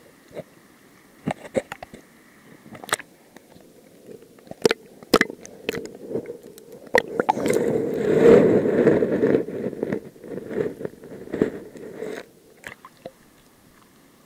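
Close-up handling noise: scattered sharp clicks and knocks, then a few seconds of dense rustling and crackling that is loudest about eight seconds in and stops suddenly near the end.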